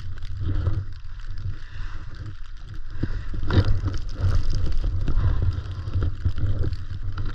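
Wind rumbling on the helmet-camera microphone, with irregular scraping and crunching of skis moving in snow as the skier works across the slope.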